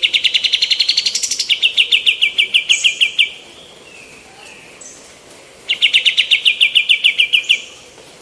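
Female kapas tembak singing two fast rattling trills of sharp repeated notes, about ten a second. The first lasts about three seconds; the second starts a little past halfway and runs about two seconds.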